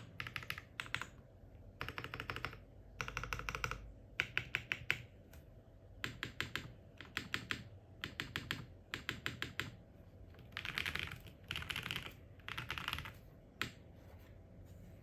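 QK80 mechanical keyboard with lubed, filmed Modern Gray switches, an FR4 plate, full foam and Shurikey Matrix keycaps being typed on in bursts of fast keystrokes with short pauses between, ending with a single keystroke near the end.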